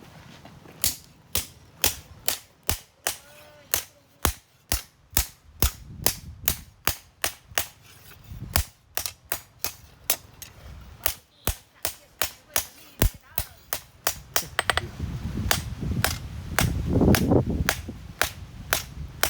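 Blacksmith's hammer striking steel on an anvil in a steady rhythm, about two sharp ringing blows a second. A low rumbling noise swells underneath for a few seconds near the end while the blows go on.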